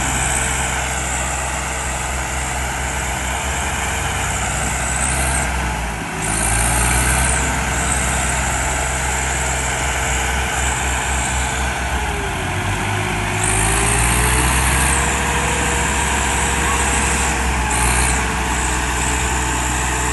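Diesel tractor engines straining under heavy load as two tractors chained together pull against each other in a tug-of-war. They run steadily, and the engine note dips briefly about six seconds in and again around twelve seconds.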